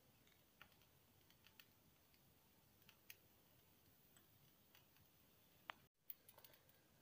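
Near silence with faint, irregular ticks and clicks from a tawa heating a spoonful of refined oil over a gas flame.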